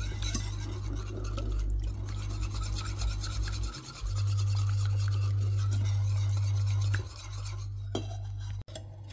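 A wire whisk stirring and scraping thick béchamel sauce around a pan with a rapid rasping rub. A steady low hum lies underneath, loudest in the middle.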